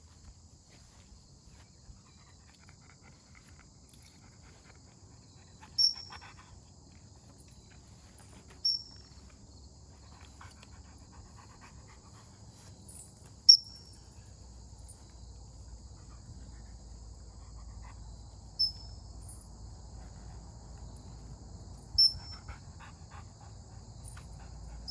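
Steady high chirring of insects, with five sharp, high single chirps a few seconds apart standing out as the loudest sounds.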